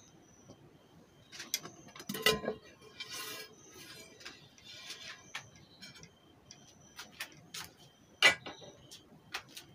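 Plastic bottom cover of an under-seat subwoofer's casing being lifted off and handled. It gives a run of clicks and knocks, with scraping in between; the loudest knocks come about two seconds in and again near the end.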